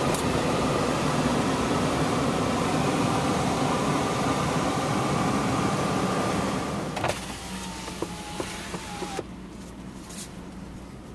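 A steady rushing noise in the car that drops away about seven seconds in, then a car's power window motor whining for a couple of seconds with a few clicks, stopping abruptly.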